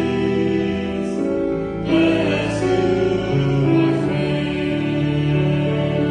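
Slow church music closing the service, with held chords that change every second or so.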